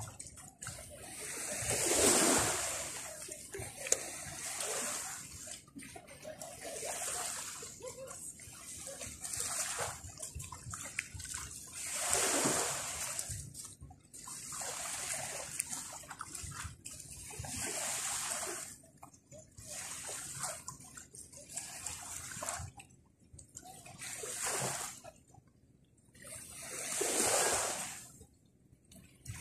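Small sea waves washing and splashing onto the shore, swelling and falling back every few seconds.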